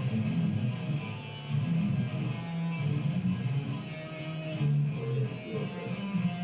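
Electric guitar playing a run of changing notes, the guitar being tracked in a recording studio session.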